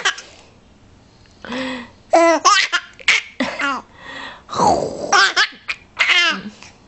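Young child laughing in a string of short, high-pitched bursts that fall in pitch.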